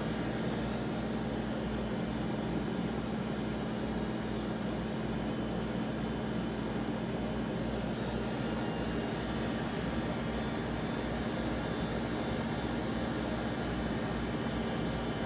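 Mori Seiki NLX-2500 CNC lathe running, a steady whirring hum with one constant low tone.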